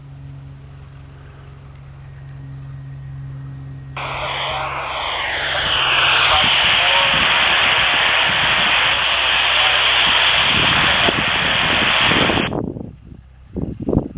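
A steady low aircraft engine hum, then about four seconds in a loud burst of radio hiss, typical of an open-mic transmission on the airport's traffic frequency, that lasts about eight seconds and cuts off abruptly.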